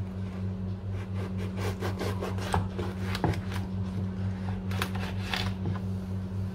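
Small knife sawing through the rind of a passion fruit on a wooden chopping board: a run of short clicking cuts and scrapes, thickest in the middle, over a steady low hum.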